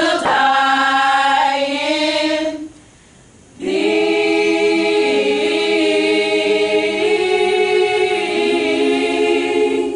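A group of voices singing a sorority chapter hymn a cappella. A sung phrase breaks off after about two and a half seconds, and after a short pause the singers hold a long closing chord in several parts.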